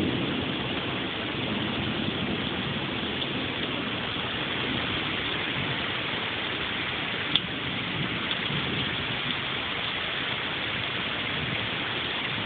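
Heavy rain pouring steadily through the storm, with a low rumble of thunder fading away in the first second or so. There is a single sharp click about seven seconds in.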